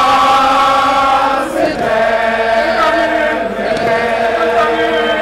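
A group of Zulu regiment (amabutho) members chanting together in long held notes.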